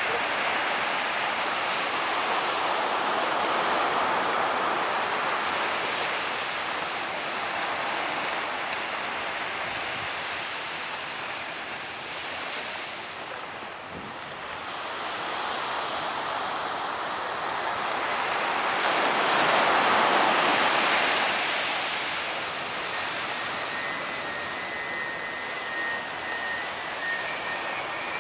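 Surf breaking on a beach, a steady wash of waves that swells about four seconds in and again near twenty seconds, with wind on the microphone. A faint thin whistle comes in near the end.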